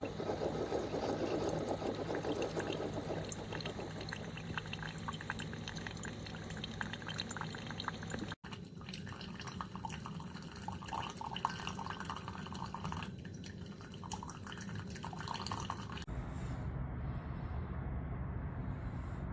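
Single-serve coffee maker dispensing hot water: liquid streaming and dripping into a mug over a low steady hum, breaking off abruptly about eight seconds in and changing near sixteen seconds.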